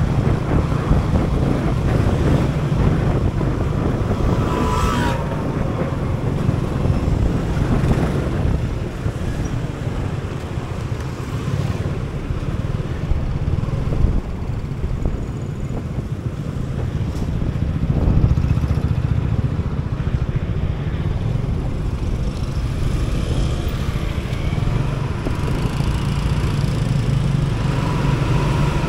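Motor scooter engine running as it is ridden through city traffic, with other road vehicles around it. A brief higher-pitched tone sounds about five seconds in.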